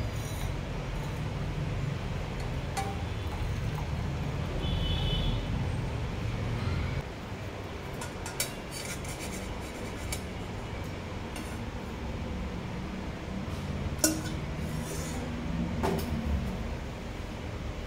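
Steel pan and tea strainer clinking against a steel tumbler as a herbal decoction is strained: a few sharp clinks, the loudest about two thirds of the way through, over a steady low rumble.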